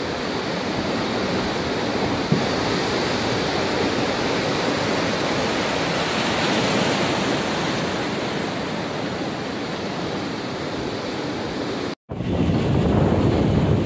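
Cyclone-driven storm surf breaking and churning against a rocky shore: a steady rush of water and spray mixed with wind. About twelve seconds in the sound drops out for an instant and comes back louder, with wind buffeting the microphone.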